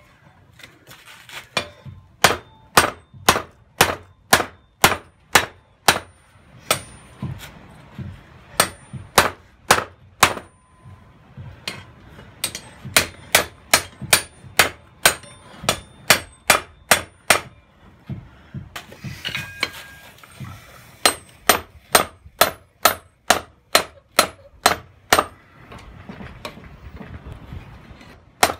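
Hand hammer striking red-hot steel on a small cheap cast anvil, forging a hatchet's looped handle: a steady run of blows, about two to three a second, each with a short metallic ring. About two-thirds through the blows stop for a couple of seconds, with a short hiss, then resume.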